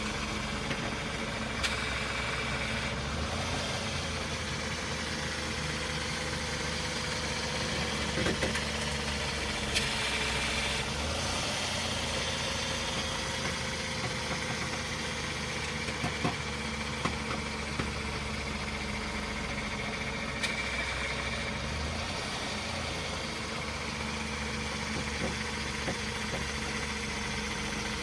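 Car engine idling steadily while the wheels are turned. A faint tone drifts slowly up and down in pitch, and there are a few short, irregular clicks or knocks: the noise that turning the wheels brings out.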